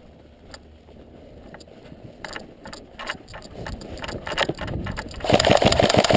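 A rapid, even mechanical rattle, loud, starting suddenly about five seconds in after a few scattered clicks.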